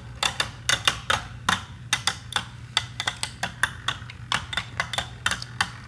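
Two Beyblade Burst spinning tops colliding in a plastic stadium: a run of sharp, irregular clacks, several a second, as they hit each other mid-battle.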